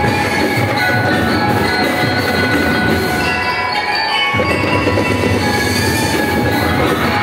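Drum and lyre corps playing live: bell lyres ring out a melody over snare and bass drums. Just past the middle the drumming drops away for about a second, leaving mostly the lyres, then comes back in.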